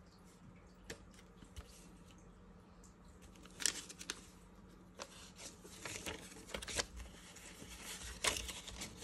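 Paper banknotes handled and counted by hand: a few faint flicks at first, then several crisp rustles and snaps of bills from about three and a half seconds in.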